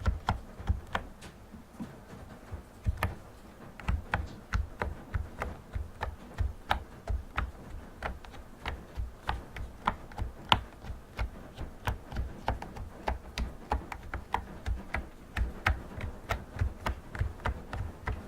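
Typing on a typewriter-style Bluetooth keyboard: a run of separate key clicks, each with a low thud, at an unhurried pace of about two to four strokes a second, with a short pause a couple of seconds in.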